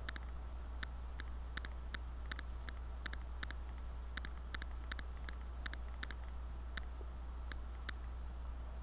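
Computer mouse buttons clicking irregularly, in single clicks and quick double clicks, over a steady low hum.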